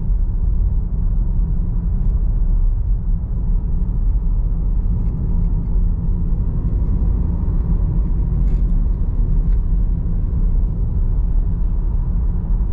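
Steady low road and tyre rumble heard inside the cabin of a Tesla Model Y electric car driving along the road.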